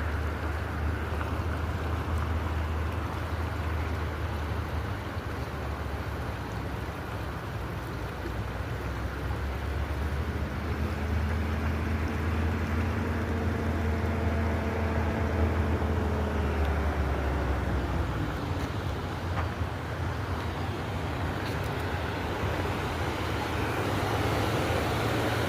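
River water rushing steadily under the bridge, with a heavy low rumble. From about ten to eighteen seconds in, a faint steady hum rides over it and dips in pitch near its end.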